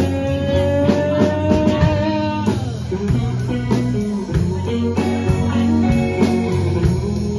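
Live rock band playing an instrumental passage with electric guitars, bass and drum kit. A long held note slides down in pitch about two and a half seconds in, and the band plays on.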